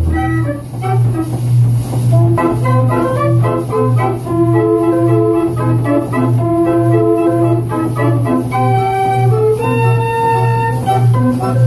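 Band organ playing a tune on its wooden and metal pipes: a melody of held notes over a steady pulsing bass.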